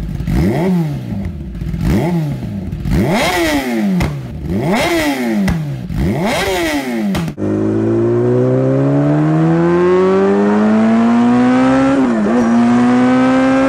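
Kawasaki ZX-10R's even-firing, flat-plane inline-four exhaust, the smooth continuous note that comes from a power stroke on every half-turn of the crank. It is revved in about five quick blips, each rising and falling, then cuts abruptly to a steady pitch climbing as the bike accelerates, dipping briefly near the end.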